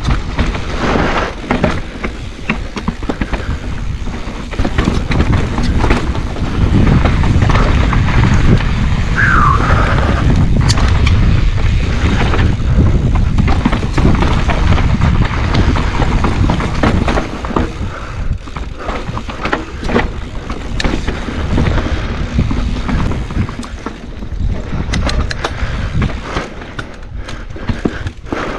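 Mountain bike descending a dirt trail: wind rumbling on the camera microphone over tyres on dirt and rock and the rattle and knock of the bike over bumps, with a short squeak about nine seconds in.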